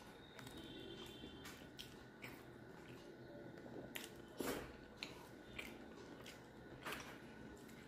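Quiet close-up eating sounds of rice and fish eaten by hand: chewing, wet lip smacks and the squish of fingers mixing rice, with scattered sharp mouth clicks, the strongest about halfway and near the end.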